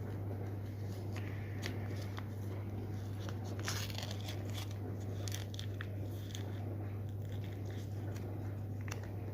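Packaging being handled and opened: scattered crinkles, rustles and sharp crackles, the loudest about a third of the way in, over a steady low electrical hum.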